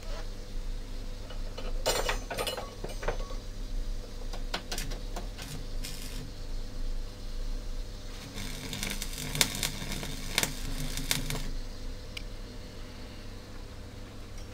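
Stick arc welding: an electrode striking short arcs to tack steel rods together, crackling and sizzling in three bursts — about two seconds in, around five seconds in, and a longer one from about eight to eleven seconds in — over a steady low hum.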